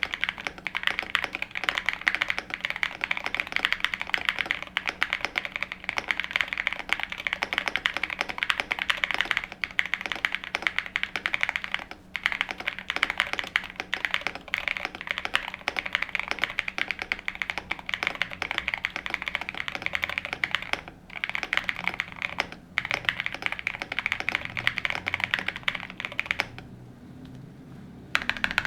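Fast, continuous typing on a gasket-mounted QK100 mechanical keyboard with an FR4 plate, lubed Epsilon switches and JC Studio keycaps: a dense run of keystroke clacks with a few short pauses. The typing stops near the end.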